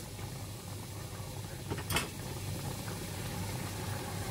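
A tin of coconut cream being handled and poured into a pot of rendang: a single sharp knock about two seconds in over a steady low hum, and the cream starts pouring near the end.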